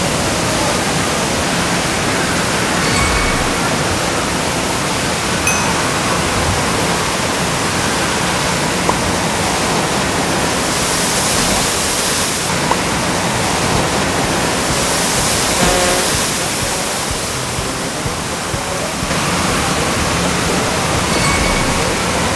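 Water pouring from an indoor waterpark's artificial waterfall: a steady rushing hiss that turns brighter and harsher twice in the middle, as the falling water pours over the camera.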